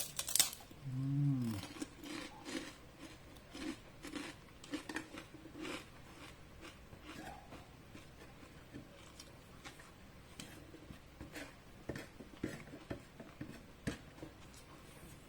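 Chicharon (deep-fried pork cracklings) being bitten and chewed close to the microphone: a loud crackle at the very start, then a long run of crisp crunches that grow fainter and sparser. A short hummed "mm" comes about a second in.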